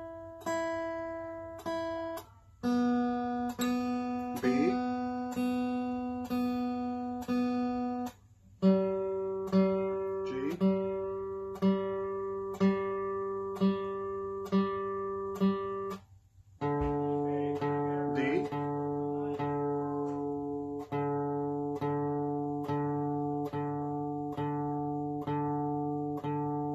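Acoustic guitar being tuned string by string: one open string at a time plucked about once a second and left to ring. It moves to a lower string three times, each lower in pitch than the last, working down from the high strings.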